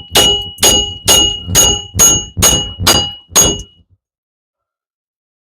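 Hammer striking the steel front wheel hub of a 2011 Cadillac DTS to knock it loose for a wheel bearing replacement. The blows are sharp and ringing, about two a second, eight in all, and they stop about three and a half seconds in.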